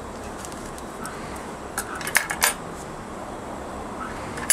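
Large tailor's shears cutting a paper pattern pinned to a dress form: a few sharp metallic clicks of the blades about two seconds in and another at the end, over a steady background hiss.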